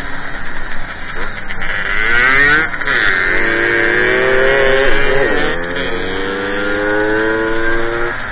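Small moped two-stroke engine running hard. Its pitch climbs under throttle and drops back sharply several times, about two, three and five seconds in and again near the end.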